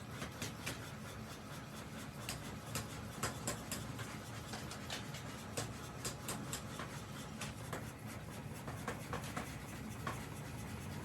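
Irregular sharp clicks and light scraping, several a second, over a steady low background noise.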